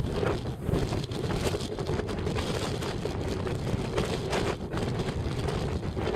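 Strong wind buffeting the microphone: a steady low rumble broken by rapid gusty flutters.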